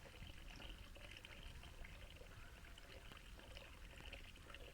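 Near silence: a faint, steady hiss in a kitchen.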